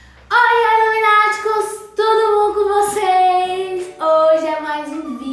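A girl singing, in three short phrases of held notes that step down in pitch.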